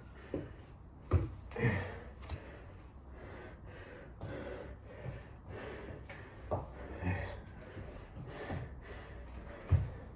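Hard, gasping breaths from a man exercising, with the thud of a foot landing as he steps into a lunge about a second in and again near the end.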